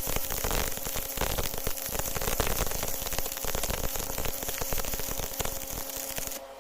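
Electric arc welding: the arc crackling steadily, then stopping suddenly near the end as the arc is broken.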